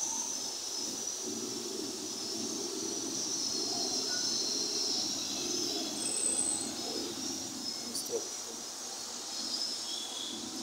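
Distant city road traffic, mostly motorcycles and cars, heard from above as a steady low hum, with high chirping over it.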